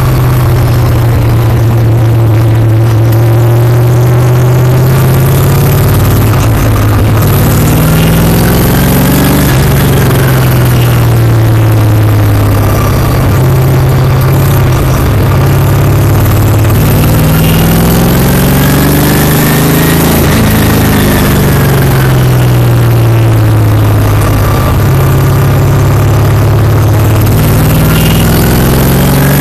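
Stock car's V8 engine running hard at speed, heard from inside the cockpit. Its pitch rises and falls in long sweeps about every ten to eleven seconds as it laps the oval.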